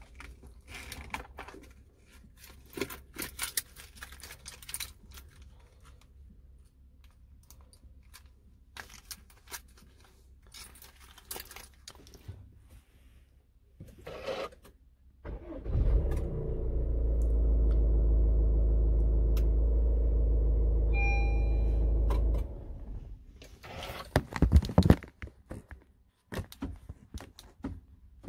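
Rattles and clicks of a smart key fob being handled, then the Honda HR-V's engine is started with the push button about fifteen seconds in. It runs steadily for about six seconds, with a short electronic beep near the end of the run, and cuts off suddenly, followed by a few more clicks.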